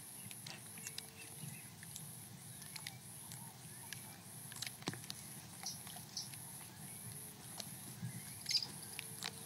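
Quiet outdoor ambience: a faint high-pitched insect chirp repeating about twice a second, with scattered small ticks and clicks.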